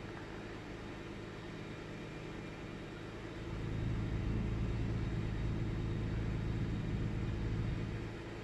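1998 Ford Taurus 3.0 L Vulcan OHV V6 idling, an engine the owner says has an intermittent rough idle. A little over three seconds in, the idle gets louder and heavier for about four and a half seconds, then settles back.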